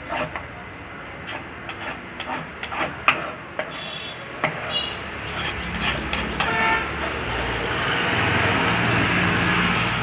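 Large band saw running with a low steady hum while a mahogany slab is shifted on the table with sharp wooden knocks, then the blade cuts into the mahogany from a little past halfway, a steady hissing cut that grows louder toward the end.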